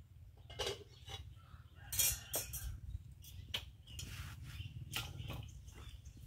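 Scattered light clicks, taps and clinks, the loudest about two seconds in, over a low steady hum.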